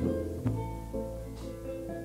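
Instrumental music: a few plucked string notes over a held low bass note.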